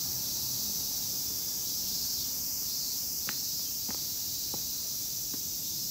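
Steady high-pitched drone of a chorus of cicadas in summer heat, filling the air without a break. Four faint clicks or taps fall in the second half.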